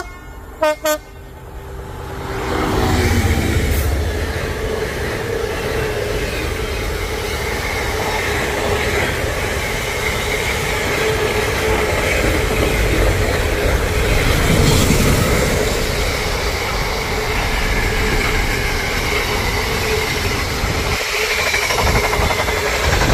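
A freight train's horn gives two short toots just under a second in. Then the locomotive and a long line of container wagons pass close by, with a loud, steady noise of wheels running on the rails.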